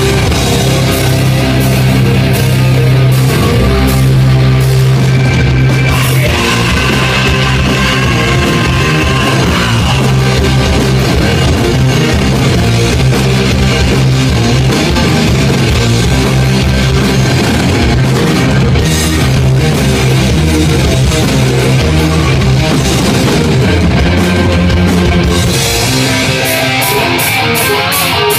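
A live heavy rock band playing loud, with distorted electric guitars, bass guitar and drum kit. Near the end the deep low end drops away and an even rhythm of about three or four strokes a second comes to the fore.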